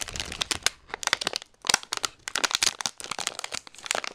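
Shiny foil wrapper crinkling and crackling as hands handle and unwrap it, in several bursts with short pauses.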